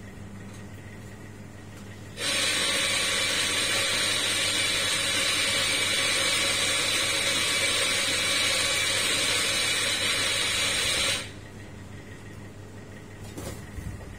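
Espresso machine giving a loud, steady hiss that starts abruptly about two seconds in and cuts off about nine seconds later. A light clatter follows near the end.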